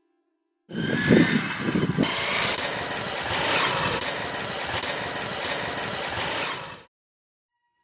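Motorcycle engine running, with a burst of revving about a second in, then idling steadily until the sound cuts off abruptly near the end.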